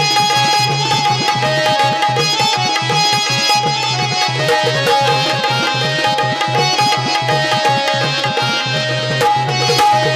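Instrumental interlude of a Marathi devotional song: a hand drum plays a quick steady rhythm under a held melody line, with no singing.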